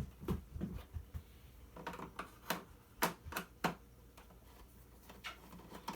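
Irregular sharp clicks and taps of small plastic and metal parts being handled while a vacuum cleaner is worked apart by hand, about ten of them, the loudest in the middle.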